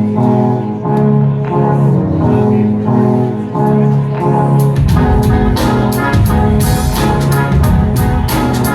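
Live band music: a repeating riff plays, then bass and drums come in loud about five seconds in.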